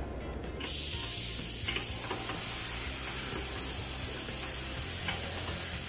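A steady high hiss, like escaping air or a spray, starts abruptly about half a second in and keeps going, with a few faint clicks over it.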